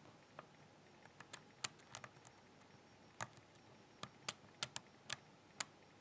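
Faint, irregular metal clicks, about fifteen in all, as a pick pushes the spring-loaded bottom wafers of an Illinois Duo wafer padlock core up and down inside the keyway.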